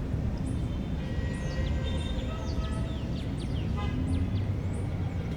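Park ambience: a bird repeating short, high chirps about once a second, with a flurry of quick falling notes in the middle, over a steady low rumble of distant traffic.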